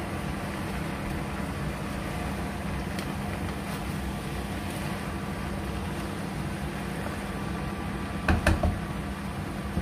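Steady mechanical hum of a kitchen appliance, with a spoon knocking against a cooking pot a few times near the end as pasta is stirred in.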